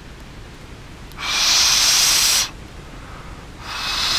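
Two long, breathy blows through cupped hands, each lasting about a second and a quarter and a second or so apart: a loud hiss with a faint whistle in it.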